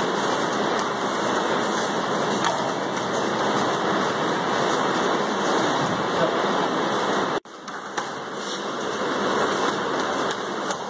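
Steady rushing noise with no distinct events, dropping out for an instant about seven and a half seconds in.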